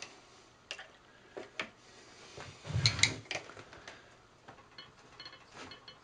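Metal clicks and clunks of a wood lathe's scroll chuck being tightened with its chuck key: a few separate ticks, a louder clunk about three seconds in, then lighter ticks.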